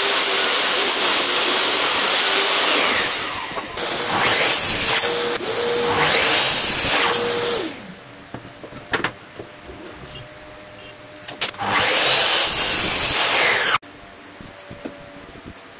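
Power saws cutting pine boards: a saw runs loud through a cut for the first half, with a steady motor whine under the cutting noise. After a quieter stretch of clicks and handling, a miter saw runs through another board and cuts off suddenly near the end.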